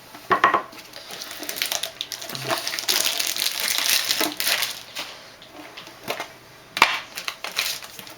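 Plastic wrapping rustling as it is torn and pulled off a trading-card tin, with scattered sharp clicks of handling; the rustling is loudest in the middle.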